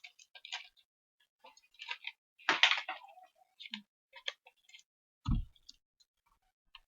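Jelly beans dropped into a bowl, a scatter of small irregular clicks with a denser rattle of several together, and a dull thump about five seconds in.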